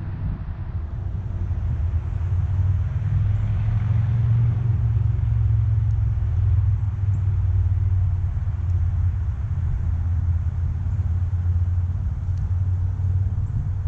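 A steady low rumble that builds over the first couple of seconds and then holds.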